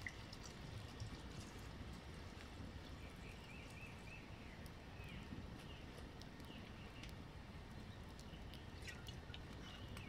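A campfire crackling softly with scattered light snaps, over a low outdoor background with faint high chirps now and then.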